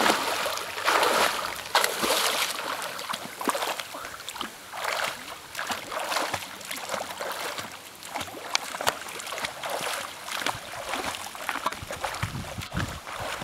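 A swimmer doing backstroke, his arm strokes and kicks splashing the water in a steady rhythm of about one splash a second, getting fainter as he swims away.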